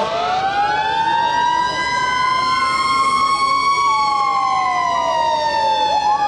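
Fire engine sirens wailing out of step, their pitch sweeping slowly up and down with several tones crossing. A new rise begins near the end.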